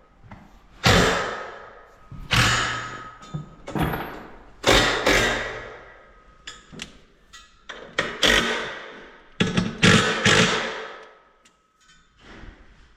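Heavy metal thuds and clangs, about eight of them at irregular intervals a second or two apart. Each rings on briefly with a metallic tone before dying away.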